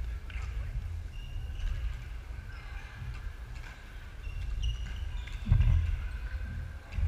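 Badminton hall noise: sport shoes squeaking on the wooden court floor and shuttlecocks being struck on the surrounding courts, over a low rumble, with a dull thump a little past halfway.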